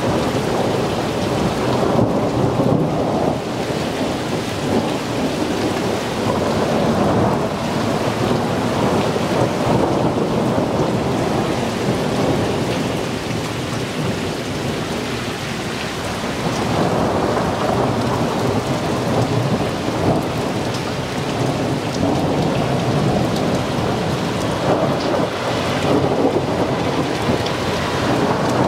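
Thunderstorm: heavy rain pouring down steadily, with rumbling thunder. The sound swells and eases every few seconds.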